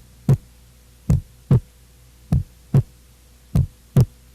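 Normal human heart sounds on auscultation: the first and second heart sounds (lub-dub) in steady pairs, the second following the first by under half a second, in a slow even rhythm of a little under one beat a second. Nothing is heard between the beats, so there is no murmur.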